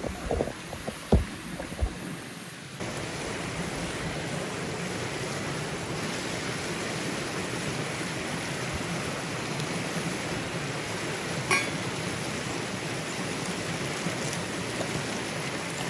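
A few knocks and clinks, then about three seconds in a steady rush of flowing water starts suddenly and holds, with one more click near the end.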